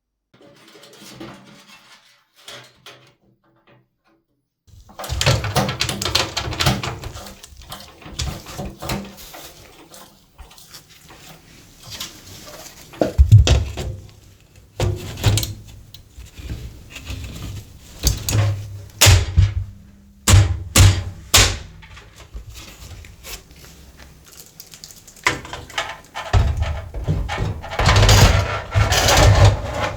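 Handling noise from computer parts being fitted into a PC case: irregular clicks, knocks and rustles, with heavier thumps now and then. It starts a few seconds in after near silence.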